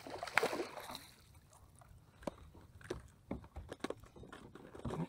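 A hooked bass splashing at the surface as it is brought to the boat, in the first second. Then a scattered series of sharp knocks and clicks as the fish and tackle are handled on the boat's deck.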